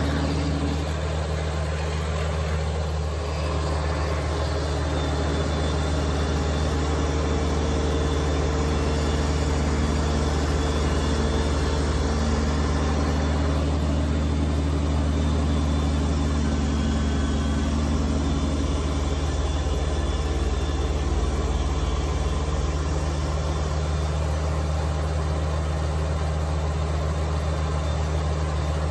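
Kubota BX2380 tractor's three-cylinder diesel engine running steadily under load, driving the front-mounted BX2816 snowblower as it throws snow.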